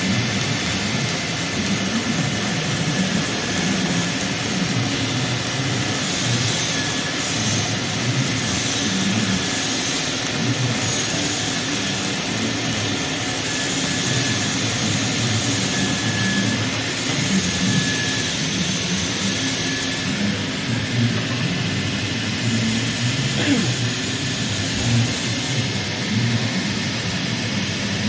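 An automated pipe-welding machine running a MIG arc around a pipe's circumferential seam, throwing spatter: a loud, steady machine noise with arc hiss, unbroken throughout.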